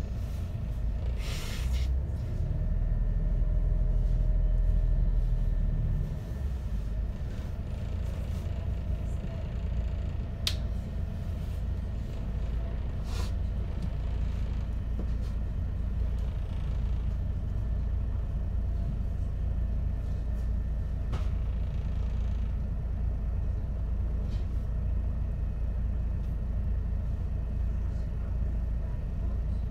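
MAN Lion's City city bus heard from inside the cabin: a short hiss of air about a second and a half in, then the engine runs louder for a few seconds as the bus pulls away. It then settles to a steady low idling rumble, with a couple of sharp clicks.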